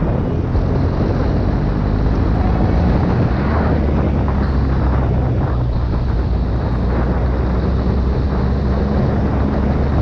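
An engine running steadily at an even speed, with wind rushing over the microphone.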